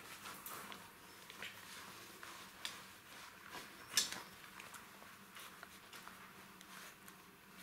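Jack Russell Terrier puppies tussling over a rubber chew toy: faint scuffling with scattered light clicks and knocks of the toy, the sharpest about four seconds in.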